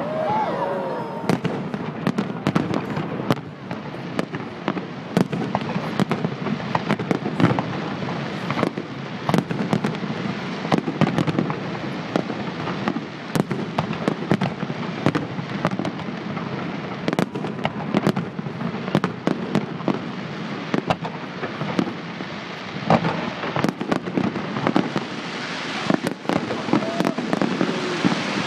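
Fireworks display: a dense, continuous run of sharp bangs and crackling bursts, several a second throughout.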